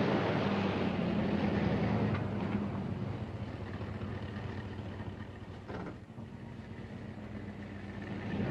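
Chevrolet pickup's 350 cubic inch V8 engine running with a steady hum, growing quieter through the middle and picking up again near the end.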